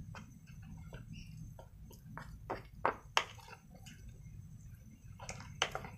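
A plastic spoon stirring thick gram-flour batter in a plastic bowl: wet squelching with irregular clicks of the spoon against the bowl, the sharpest about three seconds in, over a steady low hum.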